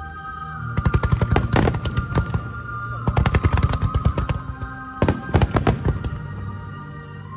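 Starmine fireworks going off in rapid volleys of bangs and crackles, in three dense bursts about a second in, around three seconds and around five seconds, over music with long held notes played in sync with the display.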